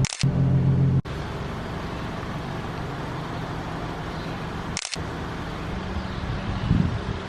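Car engine running with a steady drone that cuts off abruptly about a second in, followed by a quieter steady hum of car and road noise, with a brief dropout near the middle.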